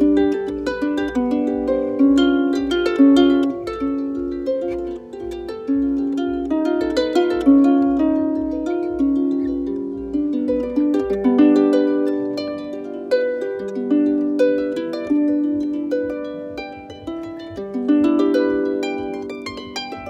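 Lever harp played by hand: a continuous flowing tune of plucked notes over lower notes, each note ringing on and fading as the next is plucked.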